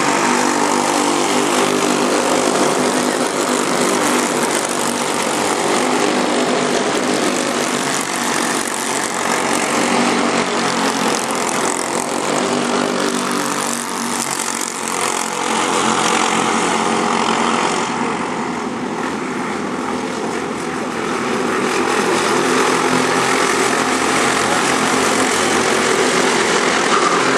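Racing kart engine running hard, its pitch rising and falling as it revs through the corners, over a steady rush of wind and hiss. The engine eases off briefly around halfway and again a few seconds later before revving back up.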